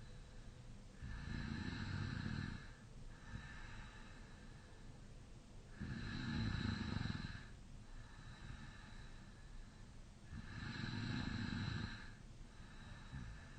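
A man snoring in deep sleep with his mouth slightly open: three loud snores, each about a second and a half long and roughly four and a half seconds apart, with softer breathing between them.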